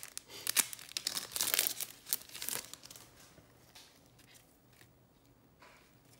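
Foil wrapper of a Topps Chrome trading-card pack being torn open and crinkled: a dense crackle for about the first three seconds, then fading to faint rustling as the cards are slid out and handled.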